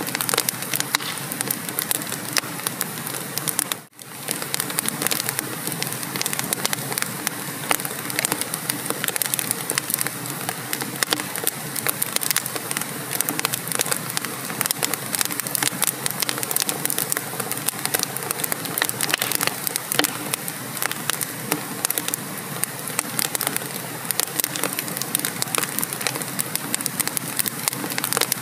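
Wood fire burning in a fireplace, crackling and popping with many irregular sharp snaps over a steady hiss. The sound drops out for a split second about four seconds in.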